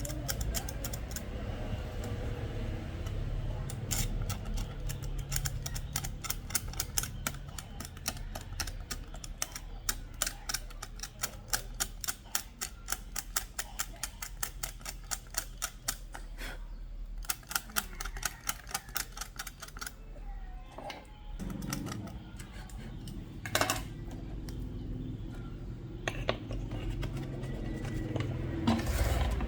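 A fast run of small sharp clicks, about four a second, going on for long stretches with a couple of short breaks, over a low steady hum.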